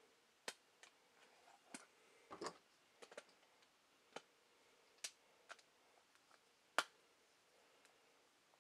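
Faint, irregular clicks and taps from handling a small aluminum LED light while loading it: the battery carrier is slid in and the end cap screwed down. About a dozen sharp clicks, one louder than the rest about two-thirds of the way through.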